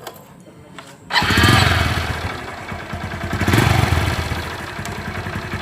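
Honda CB110's single-cylinder four-stroke engine starting about a second in, then revved up twice and settling between revs. The engine runs noisily ahead of a valve-clearance tune-up.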